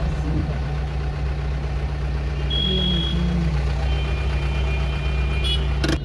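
Vehicle engine idling in a traffic jam: a steady low hum, with a few faint high-pitched tones partway through.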